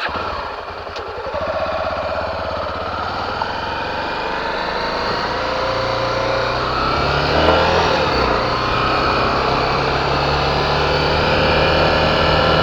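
Honda XR250 Tornado's single-cylinder four-stroke engine running while riding, its pitch stepping up about six seconds in and holding there.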